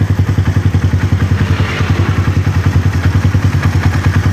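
Yamaha Jupiter MX's single-cylinder four-stroke engine idling smoothly with an even, rapid pulse. A new camshaft bearing is fitted, and the rough 'grok' grinding of the worn bearing is gone.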